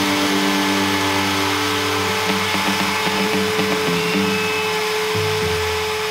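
Bosch plunge router running at speed with a steady whine, its bit cutting into red cedar.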